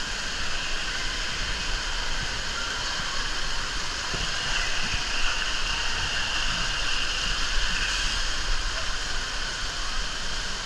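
Water rushing steadily down an open fibreglass flume water slide, a constant hiss of running water during the ride.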